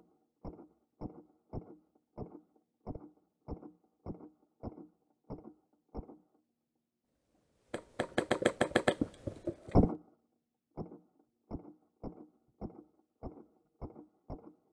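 Airsoft rifle firing a fully automatic burst of about two seconds, a rapid run of clicks near the middle. Before and after it, a steady ticking beat comes about every half second or so.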